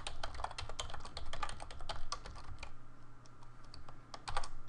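Typing on a computer keyboard: rapid runs of keystrokes, with a brief lull shortly before the end.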